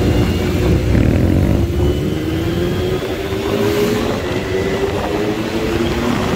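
Motorcycle engine running under way, its pitch rising slowly as the bike gathers speed, with wind rumbling on the microphone.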